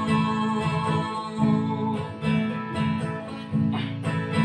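Instrumental passage of a song: guitar playing in a steady, repeating rhythm between sung lines.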